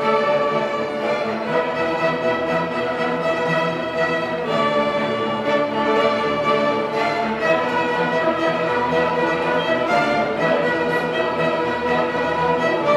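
A school string orchestra of violins, cellos and double basses playing, sustained bowed chords that shift every few seconds.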